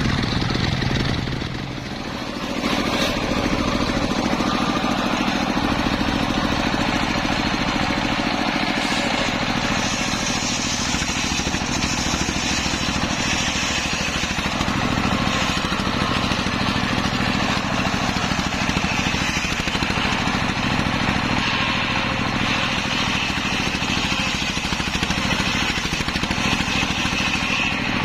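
Engine-driven homemade circular saw running steadily while sawing teak wood, the engine's hum under the hiss of the blade; the level dips briefly about two seconds in.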